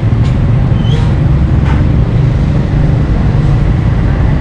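Steady loud low rumble, with a few faint clicks in the first two seconds.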